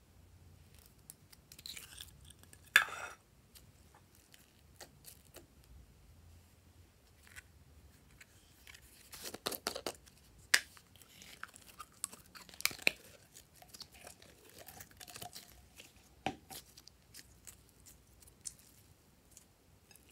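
Slime and plastic slime tubs being handled by hand: scattered short clicks and crackles, loudest about three seconds in and again in clusters around ten and thirteen seconds.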